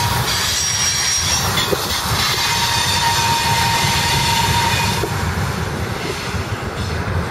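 Canadian Pacific freight train of tank cars and boxcars rolling past on the rails. Thin steady wheel squeals come and go, a high one in the first second and a lower one from about two to five seconds in. Heavy wind buffets the microphone.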